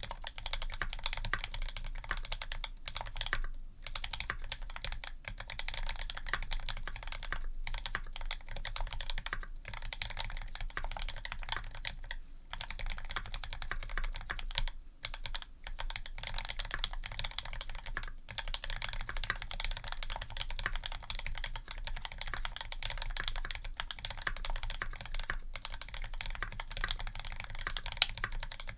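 Fast, continuous typing on a Square 60 custom 60% mechanical keyboard fitted with H1 switches (TX films, 65 g springs), an aluminium plate and GMK keycaps. The typing stops for a few brief pauses.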